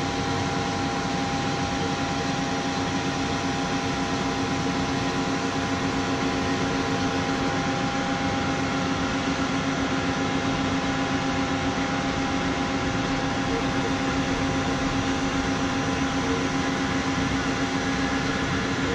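Fire truck aerial ladder's hydraulic drive running steadily as the ladder auto-stows: an even hum with several held tones. One of the tones drops out about seven seconds in.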